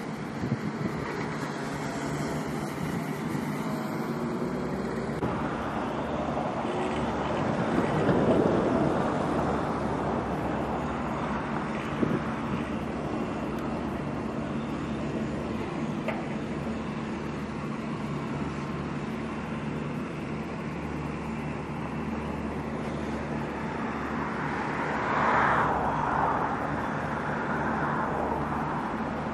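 Steady running noise heard from inside a moving vehicle, with a low hum and road traffic outside. The noise swells about 8 seconds in and again near 25 seconds.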